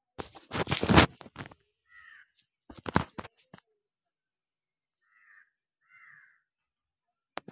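Crows cawing: two loud, harsh bursts of calls in the first few seconds, then fainter single caws about two, five and six seconds in. A sharp click near the end.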